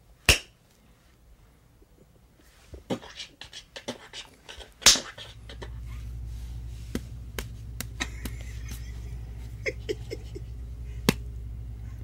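Punch sound effect made by striking a raw sweet potato by hand: sharp smacks, the loudest just after the start and about five seconds in, with smaller knocks and taps between and after. A low steady hum comes in about halfway.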